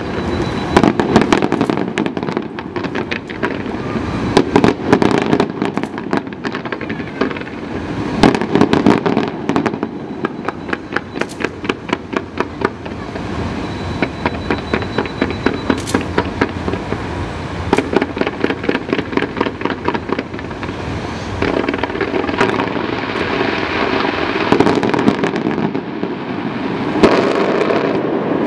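Distant fireworks display: rapid bangs and crackling reports, at times in quick regular strings of several a second. In the last several seconds the bangs thin out under a steady rushing noise.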